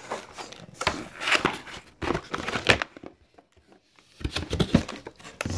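Plastic packaging crinkling and rustling in irregular handfuls as a keyboard is pulled out of its wrapping, with a pause of about a second in the middle.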